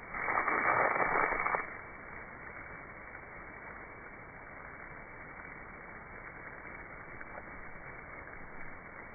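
Muffled, slowed-down rush of a garden hose's water stream spraying, louder for about a second and a half near the start and then a steady hiss.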